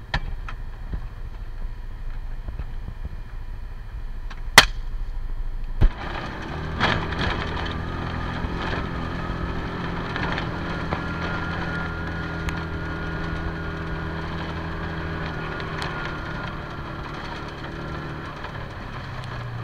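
Side-by-side UTV quiet at first, then its engine running steadily under way from about six seconds in, with scattered rattles and knocks from the body over rough ground. Just before the engine picks up come two sharp, very loud cracks about a second apart, the first the loudest sound here.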